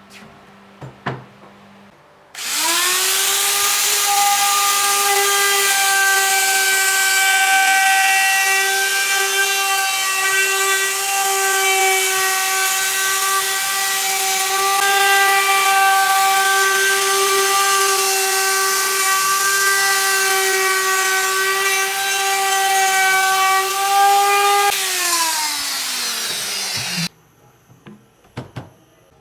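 Electric power tool running: its motor spins up a couple of seconds in and holds a steady, high, whining pitch for over twenty seconds. It is then switched off and winds down with falling pitch near the end.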